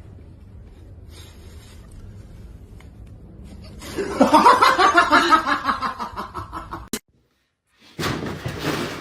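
A person laughing loudly in rapid pulses for about three seconds, starting about four seconds in and cut off suddenly; a different sound begins about a second later.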